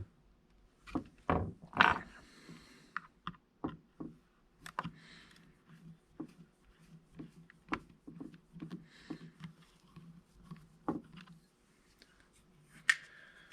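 Scattered light clicks and taps of small hand tools working on the plastic body of a DJI Mavic Air 2 drone during disassembly, with soft rustling between them.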